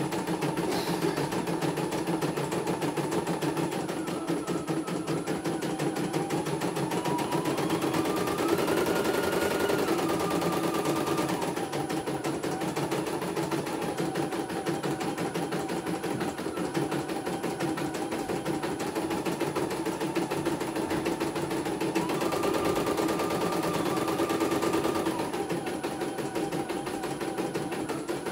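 CNY E900 embroidery machine stitching: a fast, steady chatter of needle strokes, with a motor whine that rises and falls twice, about seven seconds in and again past twenty-two seconds.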